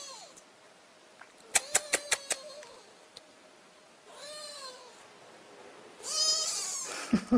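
Young kittens mewing: thin, high mews that rise and fall, one about four seconds in and a louder one about six seconds in. A quick run of five sharp clicks comes about a second and a half in, and two low thumps near the end.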